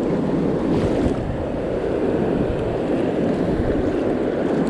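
Ocean surf washing through the shallows in a steady rushing noise, with wind buffeting the microphone.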